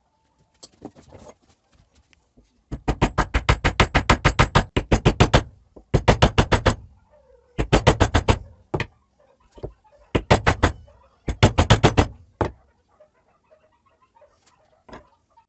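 A workshop tool knocking rapidly, about nine evenly spaced strikes a second, in five runs of one to three seconds with short pauses between, and a few single clicks near the start and end.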